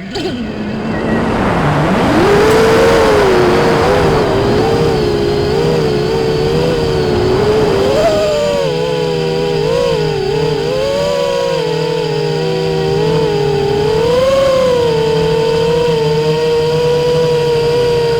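FPV quadcopter's electric motors whining, the pitch wavering up and down with throttle changes. Just after the start the pitch drops low, then climbs back up about two seconds in, with a rushing air noise over the first several seconds.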